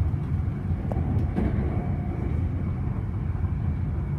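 Electric suburban train running, a steady low rumble with a faint steady high tone above it.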